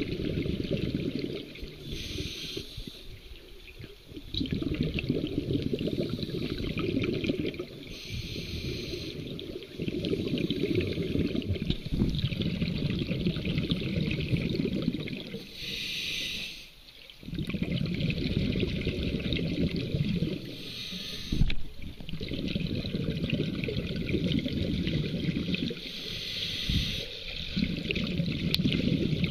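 Scuba diver breathing through a Scubapro regulator underwater. Exhaled air leaves the exhaust in long gurgling bursts of bubbles, each breath lasting a few seconds, and each is followed by a short hiss as the demand valve delivers the next inhalation. The cycle repeats about every five to six seconds.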